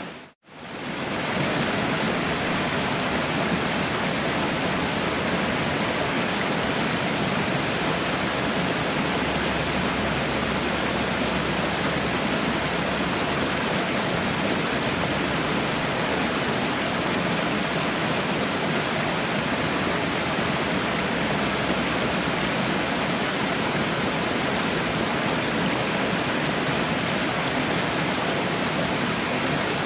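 A waterfall's falling water, a steady, even rush with no change in level. It cuts out for a split second just after the start, then comes straight back.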